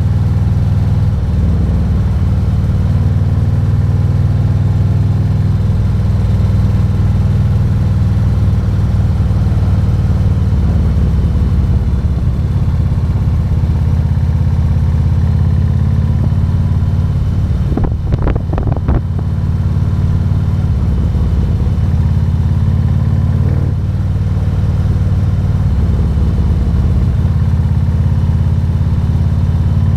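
Harley-Davidson Road King's 117 cubic inch V-twin engine running steadily under way, with a short break in the note a little past halfway.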